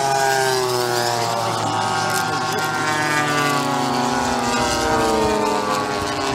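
Propeller engine of a large radio-controlled model warplane droning on a low pass, its pitch falling steadily as it flies by overhead. A second model's engine is fainter underneath.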